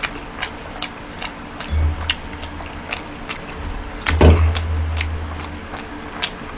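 A person eating spicy cheese tteokbokki: chewing with wet mouth clicks, about two or three a second. About four seconds in comes a louder puff of breath through pursed lips.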